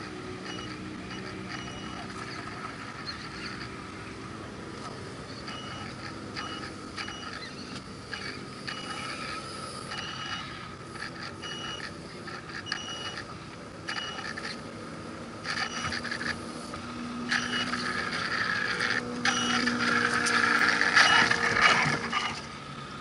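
Radio-controlled scale crawler truck's electric motor and gearbox whining as it climbs, with gear rattle, getting louder over the last few seconds as the truck drives up close and over the camera.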